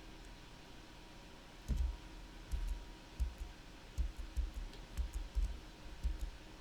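Irregular clicking of a computer mouse and keyboard, about a dozen clicks beginning near two seconds in, each with a dull low knock.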